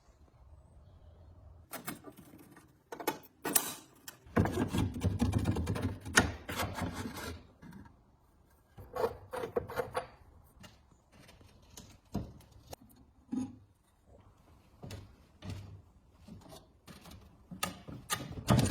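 Irregular clicks and knocks of parts and tools being handled, with a denser stretch of rubbing or scraping from about four to seven seconds in.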